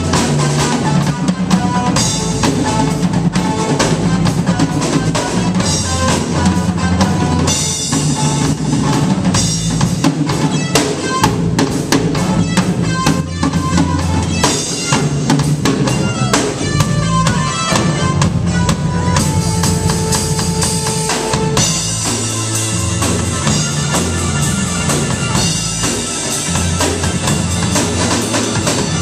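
Live instrumental jam by a small band: drum kit, electric bass and keyboard playing together, with busy drumming over a steady bass line.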